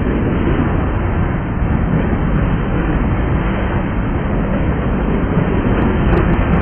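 Freight train's covered hopper cars rolling past close by, a steady loud rumble of steel wheels on the rails, with a few faint sharp clicks near the end.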